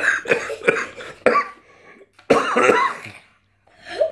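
A child coughing in a string of short bursts, with one louder cough about two and a half seconds in, after eating a foul-tasting Stinky Socks Bean Boozled jelly bean.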